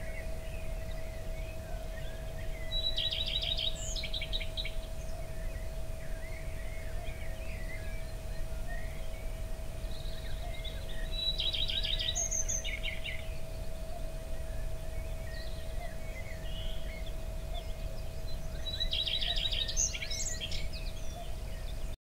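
Nature ambience of birdsong: a songbird repeats the same short, rapid trilled phrase three times, about every eight seconds, over faint scattered twittering from other birds. Underneath is a steady low rumble of background noise and a faint steady hum.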